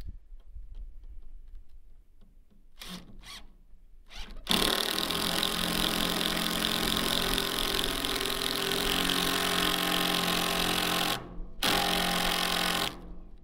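Cordless drill working into a hard, solid oak roof purlin: two short blips, then a long steady run of about seven seconds, a brief stop, and another short run near the end. The long run shows how hard it is to drive fixings into the oak.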